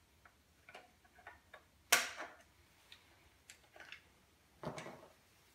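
Light clicks and taps of a screwdriver and plastic parts as the carburetor cover on an old McCulloch chainsaw is unscrewed and lifted off. There is one sharp louder click about two seconds in and a short cluster of clicks near the end.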